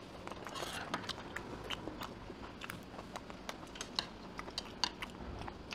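Someone eating at a table: chewing with many small, scattered clicks over a faint steady hum.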